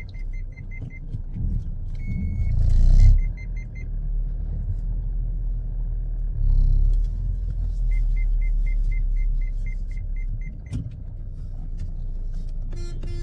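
A car's engine idling with a steady low rumble inside the MG's cabin while its electronic warning chime beeps rapidly, about five beeps a second, in several runs: at the start, briefly after three seconds, and again from about eight to ten seconds. One longer single beep sounds about two seconds in, and a louder noisy burst comes about three seconds in.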